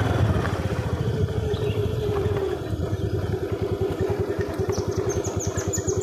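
Motorcycle engine running at low speed with a rapid, even putter. Near the end a bird trills a quick run of high notes.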